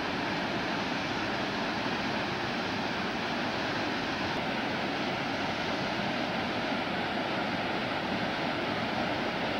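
Small waterfall spilling over a rock ledge: a steady rush of falling water.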